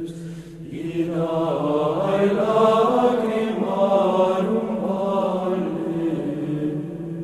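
Chanted singing over a steady low held drone. A voice comes in about a second in and sings a slow, gliding melody above the drone.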